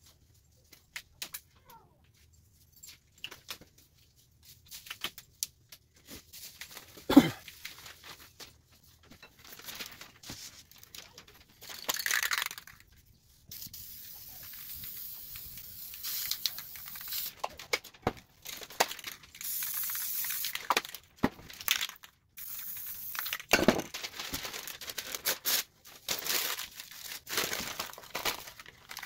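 An aerosol spray-paint can hissing in several bursts, among clicks and knocks of the can being handled, one sharp knock loudest a quarter of the way in. Near the end comes the crinkling of a glossy magazine page being crumpled for pressing texture into the wet paint.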